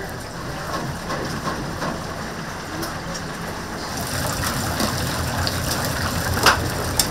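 Chicken deep-frying in hot oil, a steady sizzle that grows louder about four seconds in, with two sharp clicks near the end.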